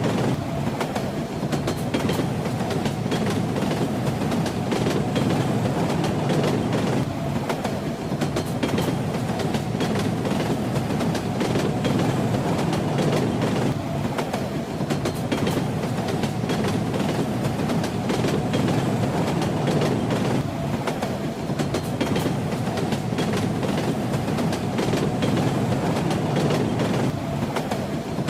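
Train wheels clacking over rail joints under a steady, dense rumble of a moving train.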